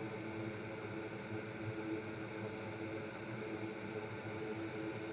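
A steady low hum with a faint hiss over it, unchanging and without distinct clicks or knocks.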